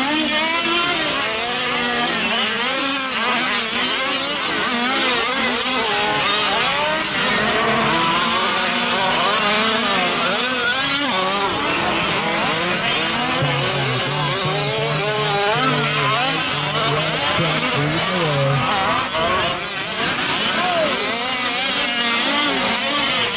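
Several gas-powered 5th-scale RC trucks' small two-stroke engines running at once, revving up and down over and over so that their pitches keep rising and falling.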